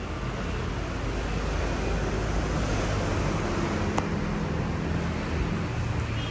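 Steady road traffic noise, a broad rumble with a low engine hum underneath, and one sharp click about four seconds in.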